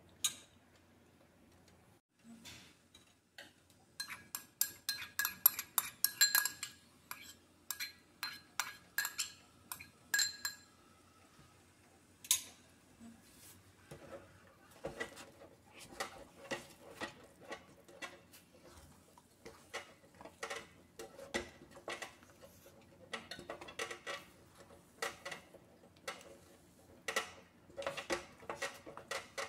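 Sharp, ringing clinks of a bowl and utensil against a stainless steel pot as grated topping is tapped out of the bowl. Then a wooden spoon stirs thick squash pudding in the pot, knocking and scraping against its sides in a steady run of quick knocks.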